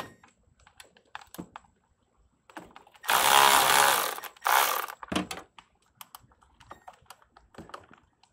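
Cordless electric ratchet backing out a bolt: its motor runs in one burst of about a second and a half, then a short second burst, with small clicks and knocks of the tool against metal before and after.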